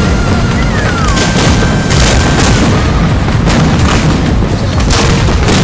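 Fireworks display: about five sharp bursts from shells and fountain effects going off, over a continuous low rumble of booms.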